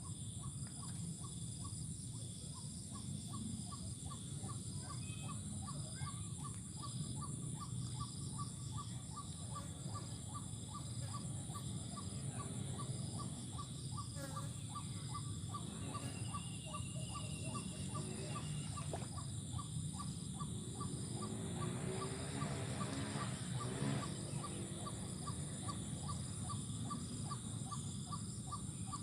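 Evening chorus of crickets and other insects: a steady high trilling, with a separate short call repeating about three times a second, over a low steady rumble. A brief wavering pitched sound rises out of it about twenty-two seconds in.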